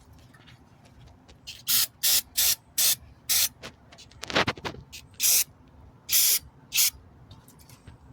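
An aerosol can sprayed in short bursts, about eight quick hissing squirts, onto a brake caliper's slide pin and bracket to clean off old, gummed-up lubricant. A brief, lower-pitched rasping sound comes near the middle.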